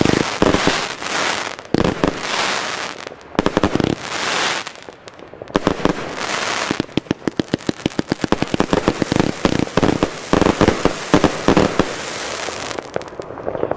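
Rubro Transbomber 144-shot, 20 mm compound firework cake firing: shots and bursts in quick succession over a haze of crackling stars. From about the middle, a fast even run of several shots a second, stopping shortly before the end.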